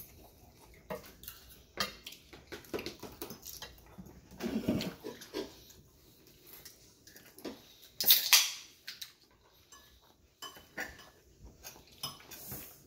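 Close-up eating sounds: chewing and lip-smacking with clicks of a knife and fork on the plate. About eight seconds in, an aluminium soda can is cracked open with a sharp pop and fizz, and near the end it is drunk from.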